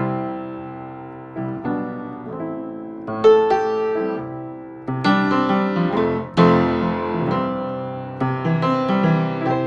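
Acoustic upright piano played solo, recorded dry with no EQ or compression: chords and notes struck every second or so and left to ring and die away, with the loudest chord about six and a half seconds in.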